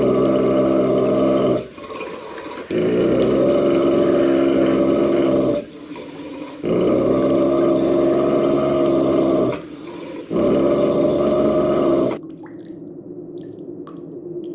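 A deep, rough growl held for two to three seconds at a time, four times with short pauses between. After that come quieter scattered drips.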